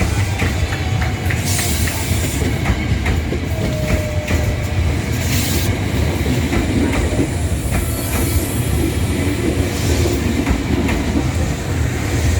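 Electric train running on the rails: a steady rumble with scattered clicks from the wheels, and short high hissing bursts about a second and a half in and again at about five seconds.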